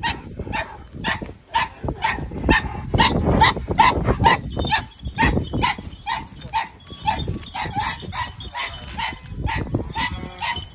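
Dog barking over and over in a quick, even series of short barks, about three a second.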